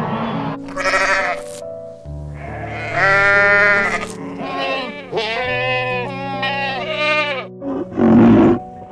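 Bleating calls, several long wavering bleats one after another, over background music with held notes. There is a loud short rough cry about a second before the end.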